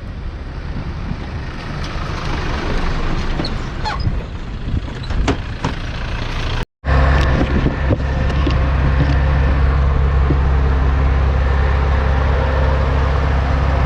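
A 4x4 driving along a sandy bush track: rough road and engine noise, then, after a sudden cut a little before halfway, a steady low engine drone at an even speed.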